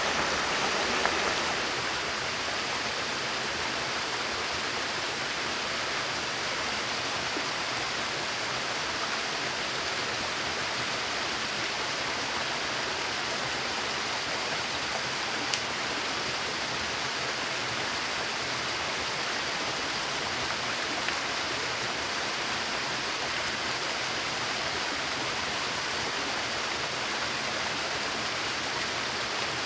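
Steady rush of a small waterfall and a shallow stream running over rocks, with one brief sharp click about halfway through.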